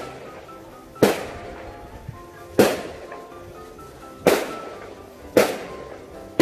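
Firecrackers going off: five sharp bangs at uneven intervals of a second or more, each with a short echoing tail. Background music plays underneath.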